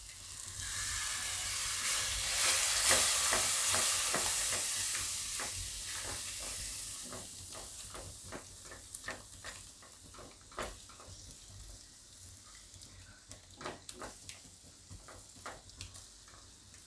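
Yogurt sizzling as it is poured into hot oil and spice masala in a kadai. The hiss swells over the first few seconds and dies down over several seconds as the yogurt is stirred in. After that, a silicone spatula knocks and scrapes irregularly against the metal pan.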